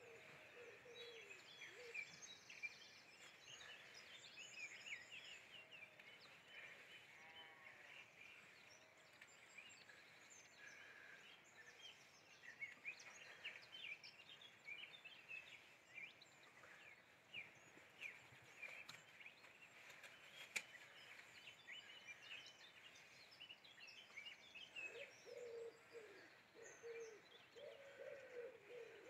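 Faint outdoor birdsong: many small birds chirping and twittering. A low, repeated pigeon cooing comes in at the start and again for the last few seconds.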